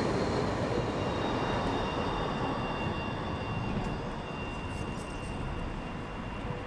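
Electric street tram running past on its rails: a steady rolling rumble that slowly fades, with a faint high whine in the middle.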